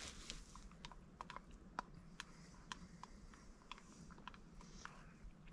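Faint, irregular light clicks and taps of a spoon stirring a thick smoothie in an enamel camping mug.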